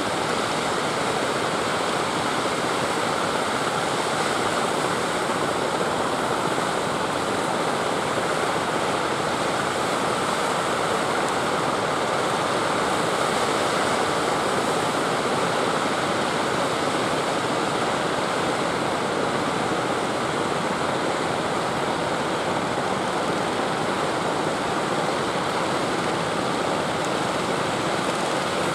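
Steady rush of sea surf breaking, an even continuous roar of water without pauses.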